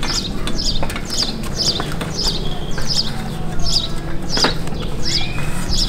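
A small bird chirping over and over, one short high chirp about every half second, over a steady low hum. A few knocks come through, one near the start and one a little past the middle.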